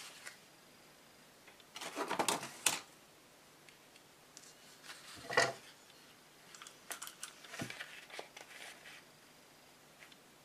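Cardstock rustling and sliding as it is handled, with scattered sharp clicks from a hand-held hole punch and eyelet tool being positioned on the paper. The rustles come about two and five seconds in, and a run of clicks and rustling follows from about seven to nine seconds.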